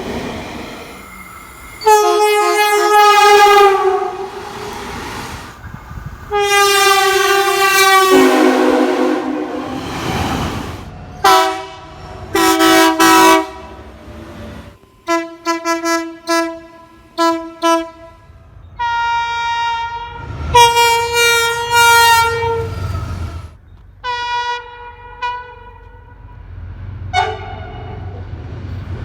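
Train air horns sounding a series of chord blasts: long blasts early on, then clusters of short toots and more long blasts. The chord changes from group to group, as from several different horns.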